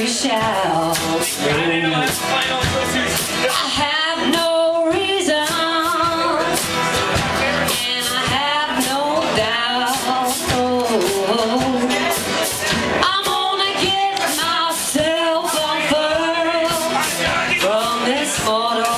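Live acoustic string band playing and singing: upright bass, strummed acoustic guitars and banjo under a sung melody.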